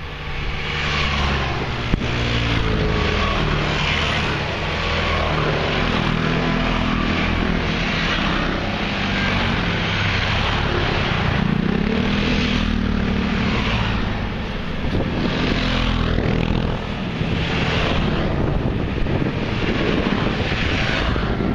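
A column of maxi-scooters riding past one after another, their engines humming and tyres hissing. Each one rises and fades as it goes by, every couple of seconds.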